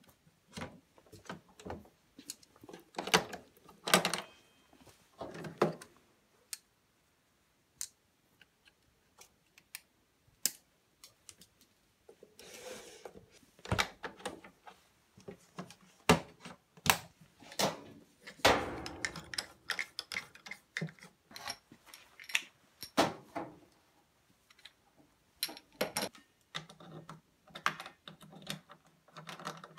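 Irregular clicks, knocks and rattles of hands working on an EWM Picomig 180 Puls inverter welder. The side door of the wire-feed compartment is unlatched and opened, parts are handled inside, and near the end the torch fitting at the front Euro central connector is worked.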